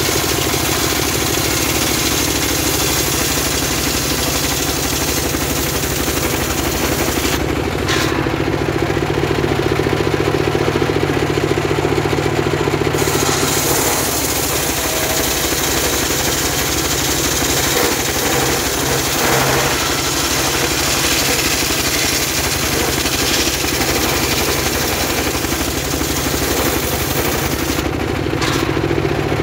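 Homemade engine-driven circular sawmill ripping a very hard log lengthwise: the engine runs steadily under the noise of the blade cutting. The high cutting noise drops out for about five seconds some eight seconds in, and again near the end, leaving the engine running.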